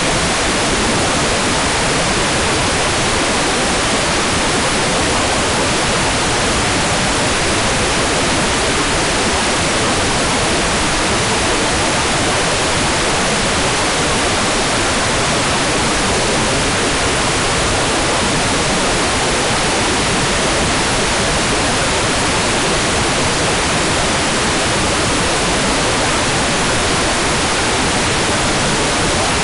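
Hair dryer running steadily: an even, unchanging rush of air noise with no rise or fall.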